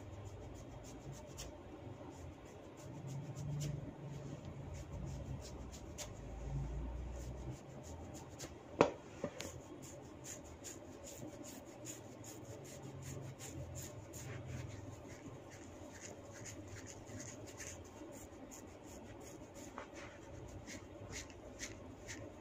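Hands rubbing and working on skin during a neck massage, with many small ticks and rubbing noises. Partway through comes one sharp, loud crack followed closely by a smaller one: a neck joint being cracked.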